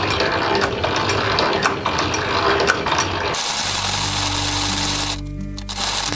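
Hand-cranked Silver post drill boring steel: its cast-iron gearing and feed clicking and clattering irregularly as the crank is turned. About three and a half seconds in, this gives way abruptly to background music.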